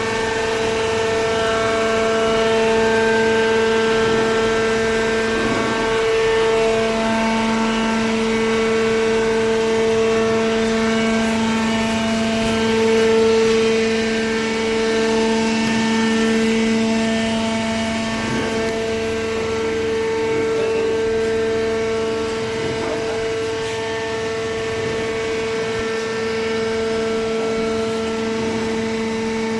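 Horizontal hydraulic baler running, its hydraulic pump and motor giving a steady, loud hum-whine that holds one pitch throughout, growing somewhat stronger in its lower tone a few seconds in.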